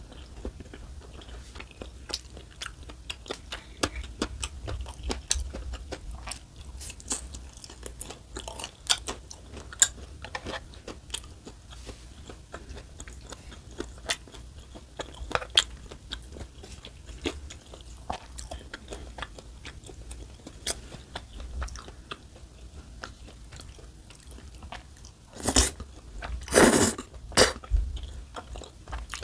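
Close-miked chewing of a mouthful of rosé noodle tteokbokki: soft wet clicks and smacks throughout, with a few louder biting sounds near the end.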